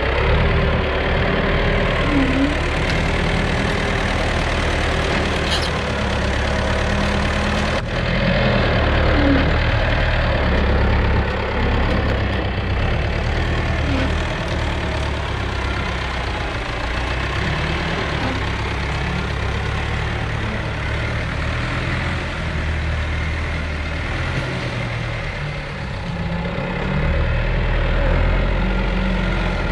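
Steady, loud running noise of woodworking factory machinery, with a low hum that shifts slightly in pitch.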